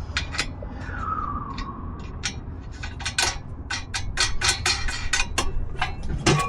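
Sharp metallic clicks and taps of lug nuts and hand tools being worked onto a trailer wheel. They come thicker from about halfway, at around four a second, over a low steady rumble.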